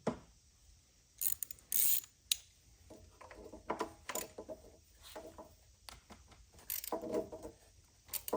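Hand-tool work on a small engine: metal clicks and clanks, with short bursts of ratchet-like clicking and rasping.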